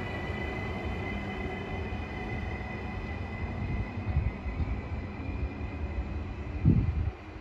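Trenitalia Blues regional train departing, moving away: a low rumble with a steady high whine that fades over the last few seconds. A brief low thump near the end is the loudest moment.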